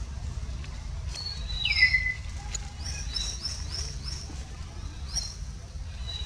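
Forest birds chirping: short high chirps, a louder call sliding down in pitch a little under two seconds in, and a quick run of four chirps about three seconds in, over a steady low rumble.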